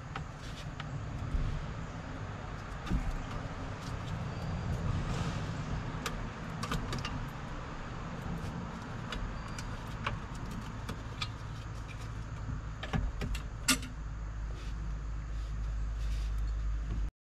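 An engine running steadily with a low rumble, with scattered sharp clicks and ticks over it.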